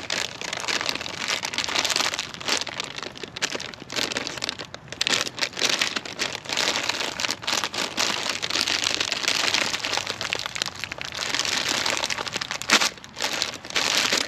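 Fajita-blend peppers and onions sizzling in oil in a cast iron skillet over a wood campfire, a steady hiss full of small pops and crackles, with one louder pop near the end.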